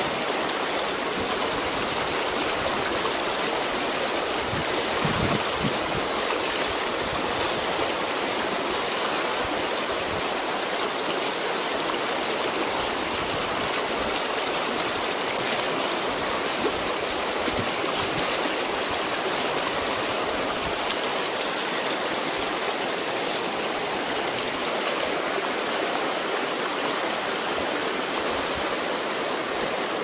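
Fast river water running over boulders in shallow rapids: a steady, even rush of water.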